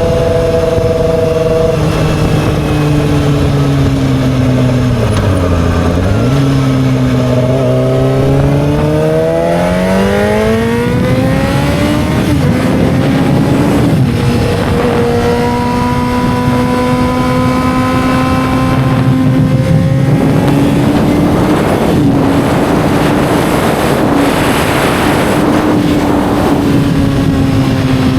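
2007 Yamaha R6's inline-four engine running under way. Its note changes pitch in steps early on, dips, then climbs steadily through the revs. After a couple of quick changes in pitch about halfway through, it holds a fairly steady note to the end.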